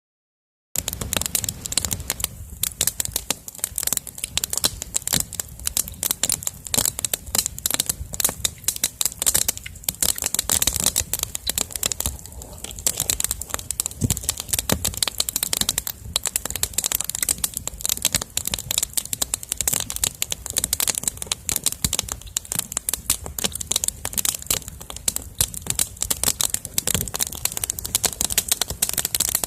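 Bonfire crackling, with a dense, irregular run of sharp pops and snaps.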